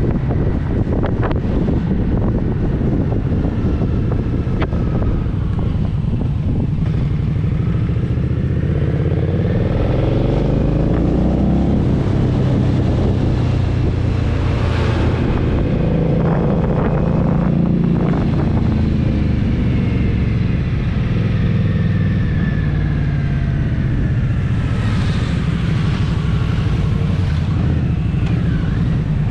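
Indian Scout Sixty's liquid-cooled V-twin engine and exhaust running under way, its note rising and falling several times as the bike speeds up and eases off.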